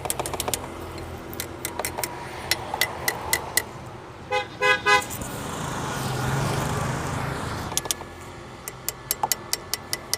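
A car horn sounds three short toots about four seconds in. Runs of quick clicks from tool work under the hood come before it, and again near the end.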